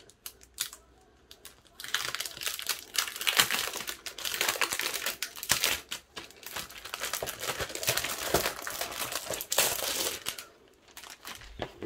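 Clear plastic packaging sleeve crinkling, with paper rustling, as a 12 x 12 pad of patterned scrapbook paper is slid out of it by hand. The crinkling starts about two seconds in, runs in uneven handfuls and dies down near the end.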